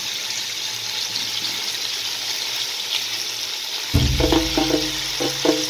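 Chicken pieces frying in hot oil in a pot, a steady sizzling hiss. About four seconds in, background music with a bass line comes in over it.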